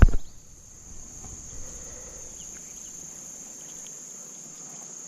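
Insects keeping up a steady, unbroken high-pitched chorus, with a sharp thump right at the start.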